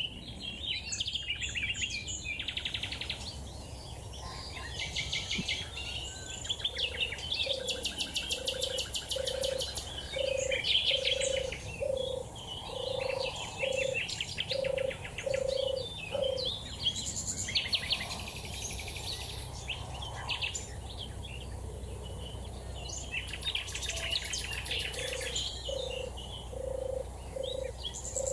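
European turtle dove's song: a steady run of low, soft purrs, one after another, in two bouts (one starting about seven seconds in, one near the end). Busy high-pitched songbird song goes on throughout.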